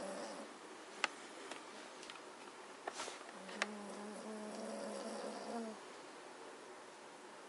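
A sleeping Magyar vizsla snoring: a steady, low-pitched snore trails off right at the start, and another lasts about two seconds in the middle, rising a little in pitch at its end. A few light clicks fall between the snores.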